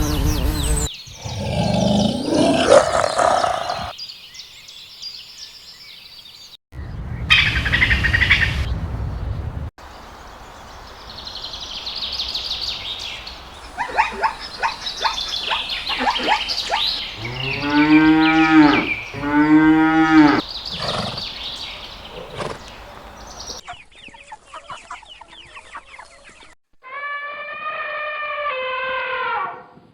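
A string of separate animal sound clips. The loudest are two cow moos back to back a little past the middle, with bird chirps shortly before them and a higher-pitched animal call near the end.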